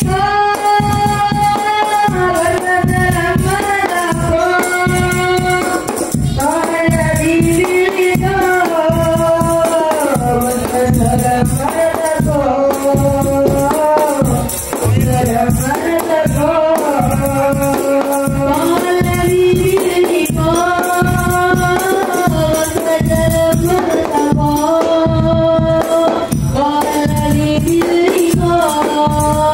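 Hadrah banjari ensemble: a young male lead voice sings a sholawat melody through a microphone in long, gliding held notes, over fast, steady, interlocking strokes of terbang frame drums and a jidor bass drum.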